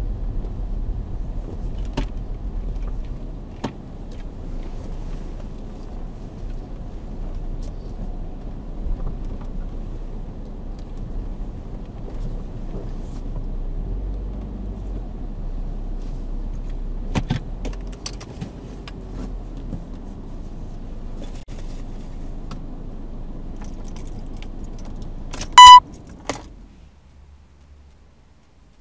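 Saab 9-5's 2.3-litre turbocharged four-cylinder engine running low and steady, heard from inside the cabin, as the car creeps to a halt and idles, with a few sharp clicks and rattles. Near the end a single short, very loud electronic beep sounds, and then the engine is switched off and the rumble dies away.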